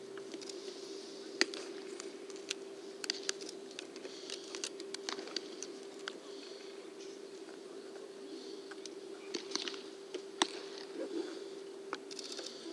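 Baseballs smacking into leather gloves as several pairs play catch: a scattering of sharp, irregular pops over a steady hum.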